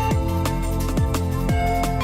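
Electronic background music with a steady beat: punchy kick drums about twice a second, held synth notes and a bass line.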